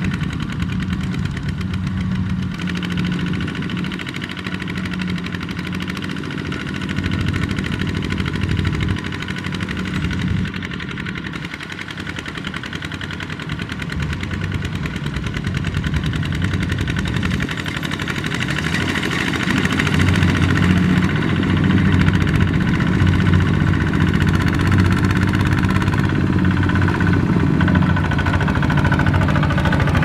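Single-cylinder diesel engine of a two-wheel walking tractor running under load as it pulls a loaded trailer through mud, mixed with the engine of a rice combine harvester close behind. The engine sound grows louder about two-thirds of the way through.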